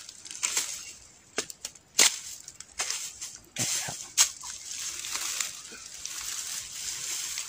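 Dry bamboo leaves and twigs rustling and crackling as hands work through a bamboo clump, with about half a dozen sharp snaps or knocks, the loudest about two seconds in.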